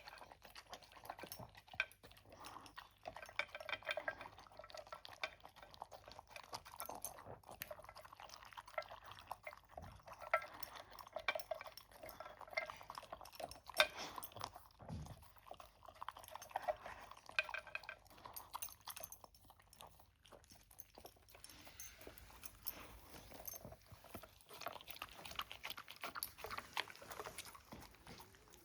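A dog eating from its food bowl: a long, fairly quiet run of small crunches, clicks and clinks against the bowl.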